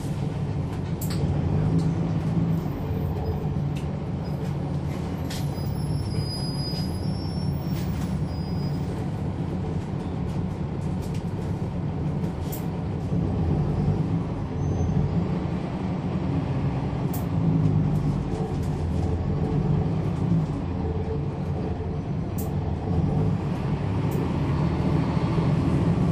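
Cummins ISL9 diesel engine of a 2011 NABI 40-SFW transit bus running steadily, heard from inside the bus cabin, with a few sharp clicks and rattles over the drone.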